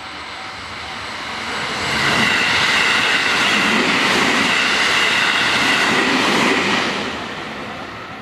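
JR West electric train passing over a level crossing: it builds over the first two seconds, is loud for about five seconds, then fades. The crossing's warning bell rings faintly at the start and again as the train fades.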